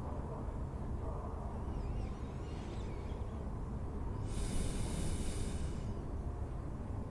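Slow breathing of a sleeping person: one long, airy breath about four seconds in, over a steady low room rumble.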